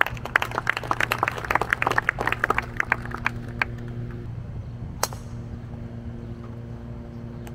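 Golf gallery clapping for a player's introduction on the first tee, dying away after about three and a half seconds. About five seconds in comes a single sharp crack: a golf club striking the ball off the tee. A steady low hum runs underneath.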